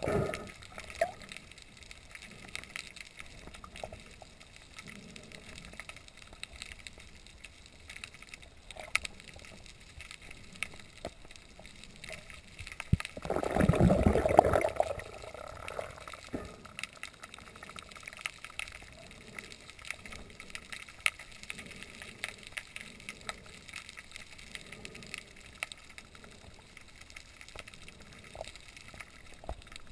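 Underwater sea ambience: faint hiss with scattered short clicks and crackles, and a louder burst of bubbling gurgle for about two seconds about halfway through.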